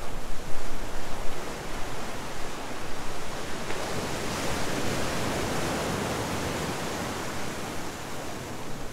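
Ocean surf breaking and washing over a rocky shore, one wave swelling up about four seconds in and easing off near the end.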